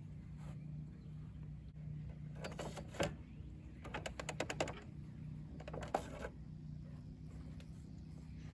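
Chainsaw being slid in and out of a Saw Boss scabbard carrier: three bursts of clattering and scraping, about two and a half, four and six seconds in. A steady low hum runs underneath.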